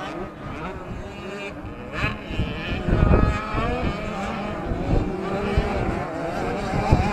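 Several 65cc two-stroke motocross bikes running on the track, their engine pitch rising and falling as the riders work the throttle. Wind buffets the microphone about three seconds in.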